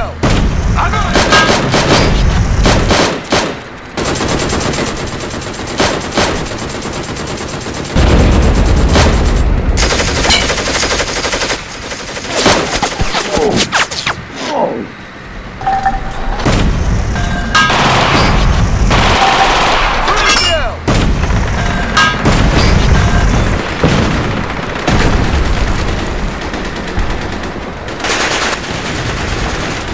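Battle sound effects: dense rifle and machine-gun fire with heavy explosions, loud and nearly continuous, with a few short falling whistles.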